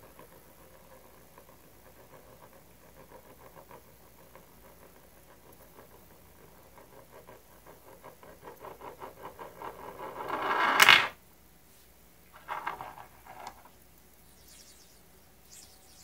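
Small metal spinning top (TEC Accessories Orbiter) spinning on a laminate countertop. Its faint rattle against the surface speeds up and grows louder as the top slows and wobbles, then cuts off suddenly about eleven seconds in as it comes to rest. A couple of short clatters follow.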